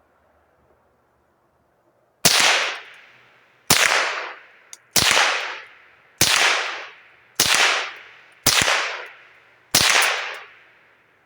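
Seven shots from a Savage Model 62 .22 LR self-loading rifle, fired at a steady pace of about one every 1.2 seconds, each trailing off over about a second.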